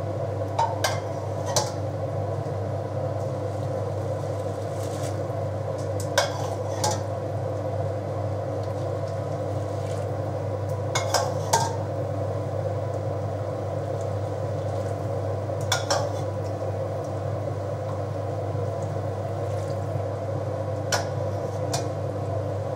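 Water being scooped out of a stainless steel pot, the scoop clinking sharply against the metal pot every few seconds, about eight times, over a steady low hum.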